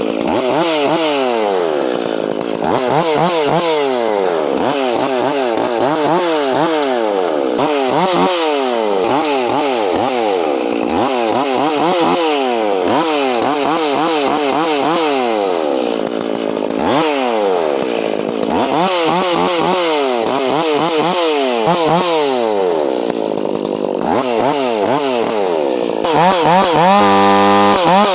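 Gas chainsaw being revved up and let back down again and again, every second or two, as it cuts brush and small growth to clear the area around a tree before felling. Near the end it is held at a steady, louder full throttle.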